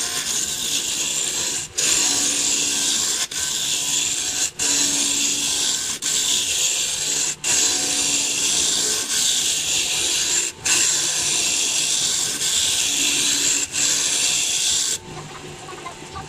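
Hardwood being worked on a spinning midi wood lathe: a steady scraping hiss, broken by short gaps every second or two.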